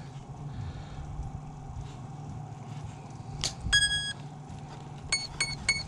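The battery is plugged into an electric RC airplane with a sharp click about three and a half seconds in. The ESC answers through the brushless motor with a short start-up chord of tones, then four quick, evenly spaced beeps near the end.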